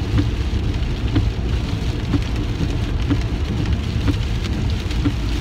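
Heavy rain beating on a car's roof and windows, heard from inside the cabin as a steady rushing noise with scattered drop taps, over a low rumble from the car.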